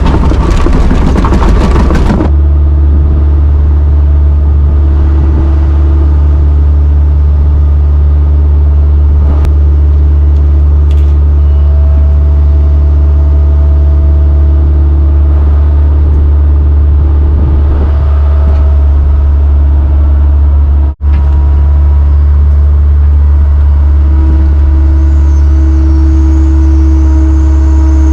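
Engine of heavy farm equipment running steadily at a constant speed, a loud low drone heard close up. A louder rushing noise over it stops abruptly about two seconds in, and the sound drops out for an instant about three quarters of the way through.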